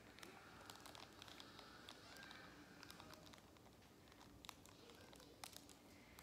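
Near silence with faint crinkling and scattered light clicks, from small toy packaging being handled.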